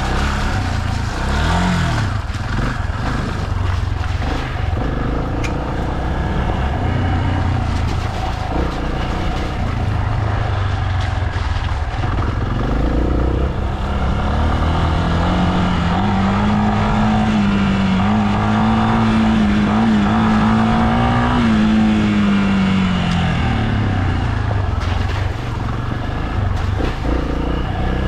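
A vehicle engine running under load on an unpaved forest road, its revs rising and falling. From about fifteen seconds in, the engine holds a higher note for several seconds before dropping back.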